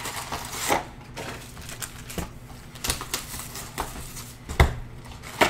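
Basketball trading cards and pack wrappers being handled on a table: irregular light clicks and taps with a soft rustle, and one louder tap about four and a half seconds in.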